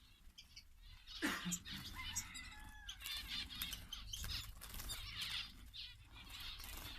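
Small finches chirping in short scattered calls, with flurries of fluttering wings.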